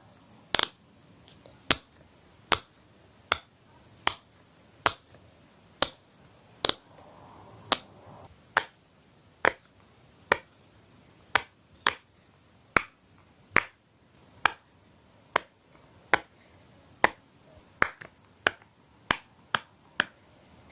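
Silicone pop-it fidget toy having its bubbles pushed through one by one: a steady series of single sharp pops, a little under one pop a second.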